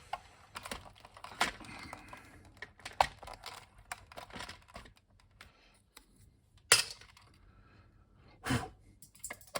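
Keycaps being pulled off a Commodore VIC-20 keyboard with a key puller: scattered plastic clicks and rattles, with a sharper snap about two-thirds of the way through.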